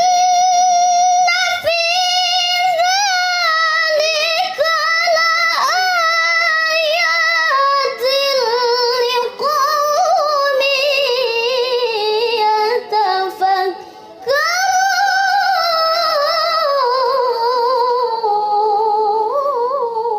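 A teenage female reciter chanting the Qur'an in melodic tilawah style: long, ornamented phrases that begin high and slowly descend. There is a short breath about fourteen seconds in before the next phrase.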